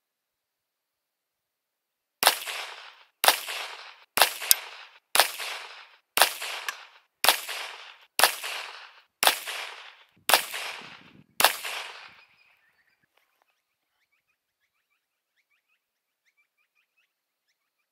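Volquartsen Black Mamba .22LR pistol firing a string of about ten shots, slow and even at roughly one shot a second. Each report is a sharp crack with a short fading echo.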